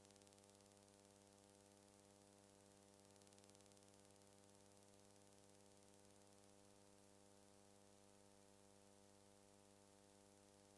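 Near silence: a faint steady electrical hum with hiss, unchanging throughout.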